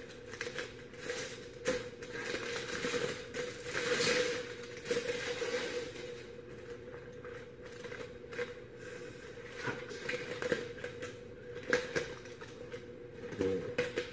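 Aluminium foil crinkling and rustling in irregular bursts as a foil-wrapped rack of beef ribs is peeled open by hand.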